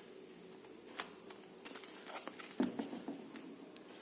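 Faint handling sounds of small robot-car parts as a wheel is fitted: scattered light clicks and taps, the loudest a little past halfway.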